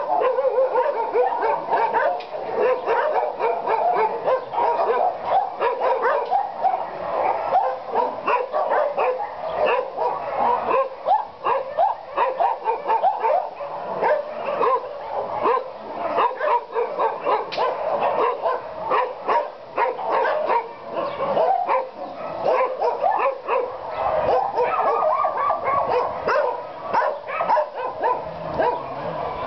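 Many dogs barking and yipping at once in a continuous, overlapping chorus.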